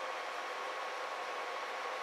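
Steady hiss with a faint high, even tone running through it; no strokes, knocks or rhythm.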